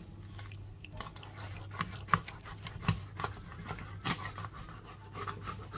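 Kitchen knife cutting through a raw plaice's head and backbone on a plastic chopping board: a run of small crunching clicks, with sharper cracks about two, three and four seconds in. A steady low hum underneath.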